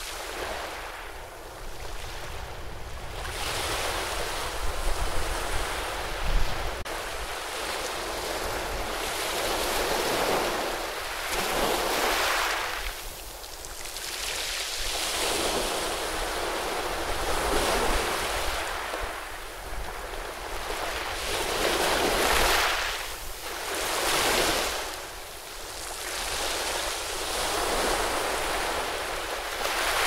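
Ocean waves breaking and washing over rocks: a continuous rush of surf that swells and ebbs every few seconds as each wave comes in and draws back.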